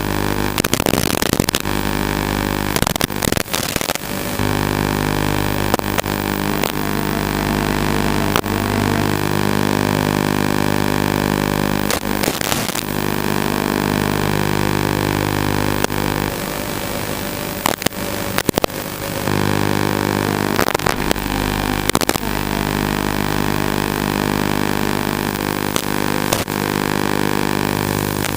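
FPV racing quadcopter flight audio: a steady buzzing hum of several fixed tones, broken again and again by short crackles and brief dropouts.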